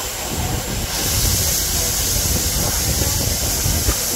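Steam locomotive E.P. Ripley venting steam as it pulls away from the station: a steady hiss that grows louder about a second in, over a low rumble of the moving train.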